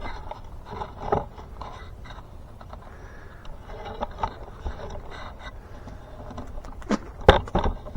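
Heavy-duty poly tarp rustling and scraping as it is handled on the shelter frame, with a few sharp knocks near the end.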